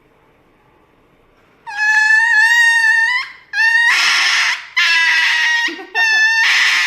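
A loud, drawn-out high-pitched animal cry starting about two seconds in, followed by a run of shorter cries, each under a second.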